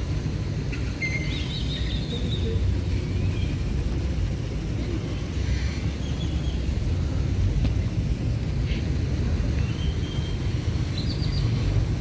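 Outdoor ambience: a steady low rumble with birds chirping now and then over it.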